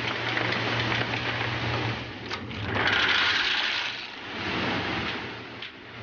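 Walnut bagging machine running with a steady hum and mechanical rattle. About three seconds in, a louder rattling rush lasting about a second as walnuts pour down the chute into a red mesh bag.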